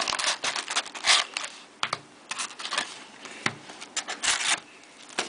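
Trading-card packs and their cardboard box being handled: irregular clicks, scrapes and rustles as the packs are pulled out to empty the box.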